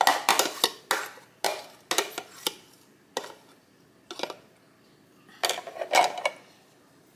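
A metal fork clicking and scraping against a plastic container as beaten eggs are worked out of it into the pan: a string of sharp, spaced taps, with a quick run of clicks near the end.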